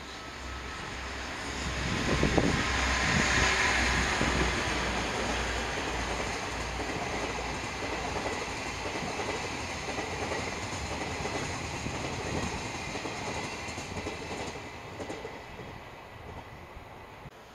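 Twilight Express sleeper train, hauled by an EF81 electric locomotive, passing close by. The noise is loudest as the locomotive goes past about two seconds in. A steady run of wheel and rail noise from the sleeping cars follows, fading away near the end.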